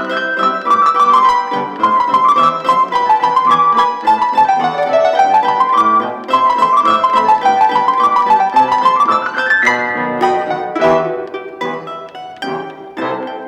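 Solo piano playing fast running passages that rise and fall in even waves. About ten seconds in, a run climbs upward and gives way to short, detached chords.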